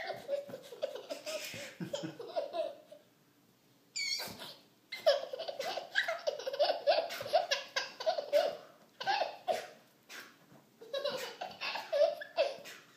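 A baby laughing hard in runs of quick, repeated chuckles, about four or five a second, with short pauses between the runs.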